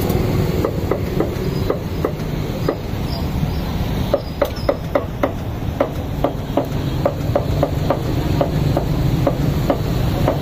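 Cooking utensils knocking in a steady rhythm at a meat grill, about three sharp knocks a second, over a steady low rumble of street noise.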